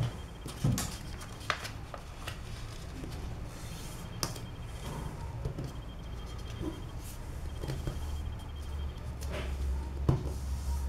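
A sheet of A4 paper being folded and creased by hand on a table: scattered crinkles and soft taps over a low steady hum.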